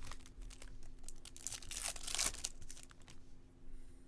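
Crinkling, rustling handling noise of 2022 Topps Chrome baseball cards and their packaging being sorted through, in irregular bursts that are loudest about two seconds in.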